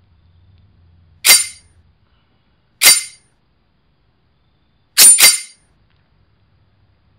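Knife-stab hits, sharp and metallic, each with a short ringing tail: one, another about a second and a half later, then two in quick succession about two seconds after that.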